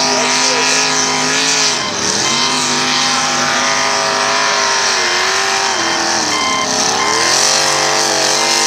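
Mud-racing pickup truck's engine revving hard at high rpm through the course. Its pitch drops sharply about two seconds in and climbs back, then dips and rises again near the end.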